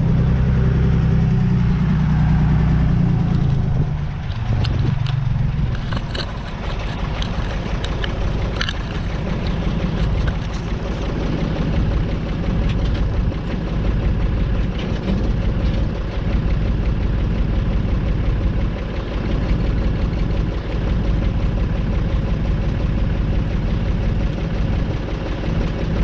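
Deutz D 4506 tractor's air-cooled three-cylinder diesel idling steadily while a tine harrow is hitched to its three-point linkage. A few short metal clinks come from the linkage between about six and nine seconds in.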